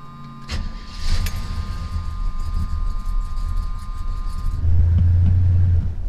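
Freshly rebuilt Chevy 350 small-block V8 starting up about half a second in, catching at once and running steadily, with no lifter tick now that the collapsed lifters are fixed. The engine gets louder for about the last second. A steady high two-note warning tone sounds over the start and stops near the end.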